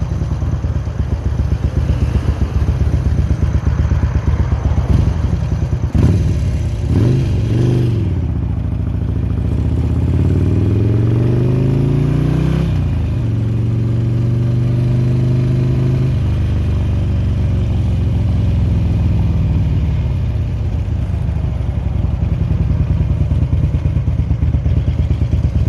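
2003 Harley-Davidson Road King's air-cooled V-twin engine idling with an uneven, lumpy beat. Its revs are blipped up and down a few seconds in, climb and hold at a higher speed for several seconds, then drop back to idle.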